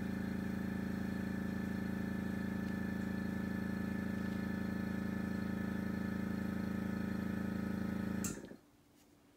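Airbrush compressor motor running with a steady hum, stopping abruptly about eight seconds in.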